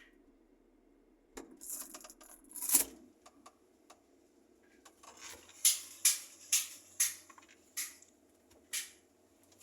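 A series of sharp knocks and clatters of hard objects being handled. An irregular clatter comes first, with its loudest knock about three seconds in, followed by a run of single sharp knocks roughly every half-second to a second.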